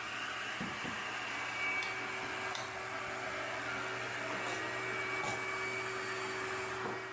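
Steady, vacuum-like whirring of a workshop dust extractor running, with a faint steady hum joining about two seconds in.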